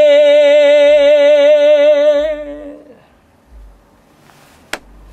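A male vocalist holding one long sung note with steady vibrato, with no accompaniment heard, fading out about two and a half seconds in. A single sharp click comes near the end.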